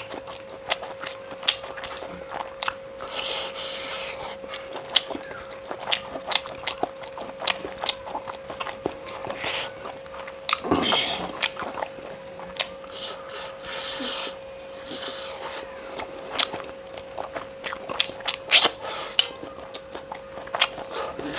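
Close-miked chewing and biting of pork and bamboo shoot curry: wet smacking with many sharp irregular clicks, over a steady faint hum. A short falling vocal murmur comes about halfway.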